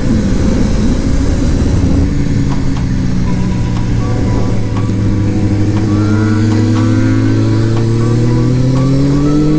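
Honda CBR600F's inline-four engine at track speed, heard onboard: the pitch drops in the first second as it slows, holds steady, then climbs gradually through the second half as the bike accelerates.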